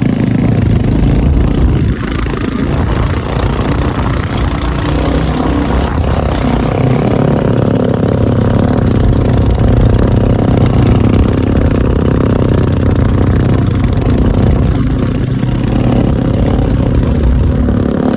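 Royal Enfield Bullet motorcycle's single-cylinder engine running steadily while riding, with a steady rush of noise over it.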